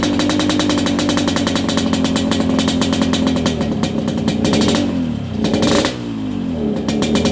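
Yamaha RX-King 135cc two-stroke single running through an aftermarket kolong exhaust, held at a steady raised speed with a rapid even firing beat. About four and a half seconds in the revs sag, then climb back to the same speed about a second later.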